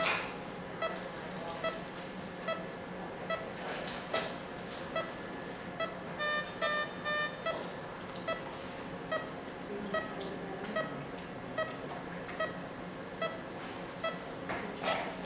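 Operating-room patient monitor sounding its pulse beep, a short tone about every 0.8 seconds, roughly 70 a minute, over a steady equipment hum. About six seconds in, a quick run of four higher beeps sounds, and there are a few sharp clicks.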